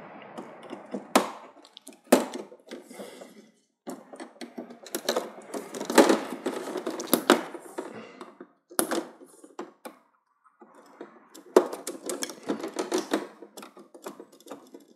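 Plastic parts inside an LED TV being handled and pried off by hand: irregular sharp clicks and taps of the plastic retaining clips, with rustling and scraping in between.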